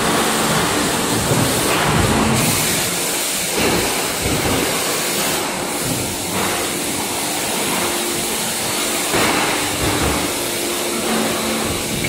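Machinery of a stainless-steel lunch tray production line running: a steady mechanical noise with a low hum, swelling louder a few times.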